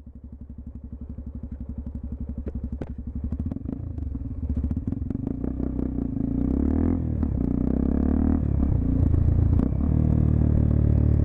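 Honda XRE 300's single-cylinder engine running through a Roncar 2 Way aftermarket exhaust, at first with slow, even, distinct firing pulses, then growing steadily louder and, from about six seconds in, running as a denser, steadier note as it picks up.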